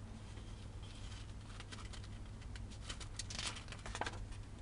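A page of a paper instruction booklet being turned: a crisp rustle with several sharp crackles, strongest from about one and a half to four seconds in.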